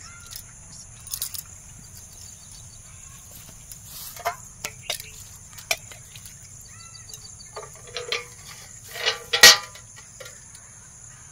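Steady high-pitched insect chorus of crickets, with scattered clinks and knocks from a small brass water pot handled against a brass bucket; the loudest knock comes about nine seconds in.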